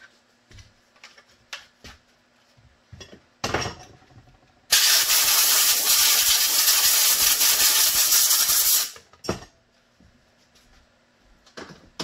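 Compressed air from a blow gun on a coiled shop air hose: a loud, steady hiss of about four seconds that starts and stops abruptly, clearing dust off freshly sanded parts. Light clicks and knocks of handling come before and after it, with a louder knock just before the blast.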